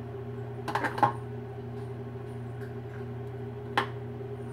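A spoon knocking against a plastic food-processor bowl while sauce is scooped out: a quick cluster of clicks about a second in and a single click near the end, over a steady low hum.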